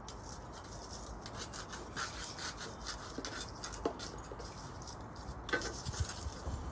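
Irregular scratchy rubbing and scraping strokes, with a couple of sharper ticks about four and five and a half seconds in.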